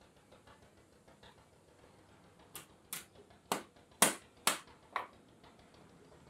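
Hammer blows on a rivet set, riveting friction lining onto a truck clutch plate: six sharp taps about two a second, the loudest in the middle of the run.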